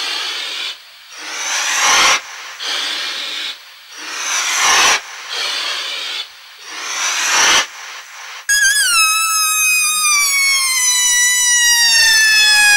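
DJ sound effects: three rising white-noise whooshes, each cut off sharply, then about eight seconds in a synthesizer tone with many overtones that slides slowly downward.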